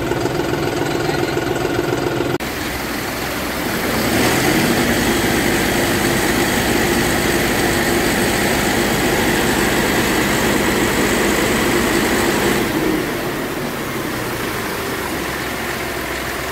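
Tractor engine running steadily, getting louder for several seconds in the middle before settling back.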